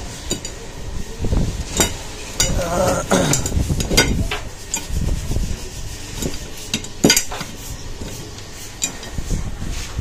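Painted steel brackets clinking and knocking against each other and the workbench as they are handled and fitted together, a handful of sharp metal knocks at irregular intervals.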